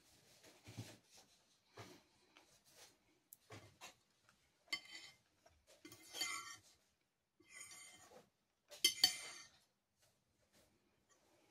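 Metal fork and knife scraping and clinking against a ceramic plate as the last scraps of food are gathered up, in several short bouts that grow busier in the second half and are loudest about nine seconds in.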